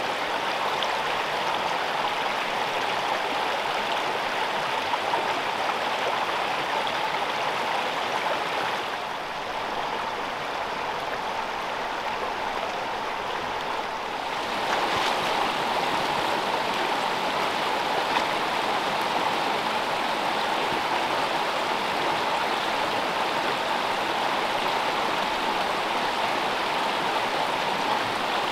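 Water of a small freestone mountain stream rushing and babbling over rocks, a steady flow whose level shifts slightly about nine and fifteen seconds in.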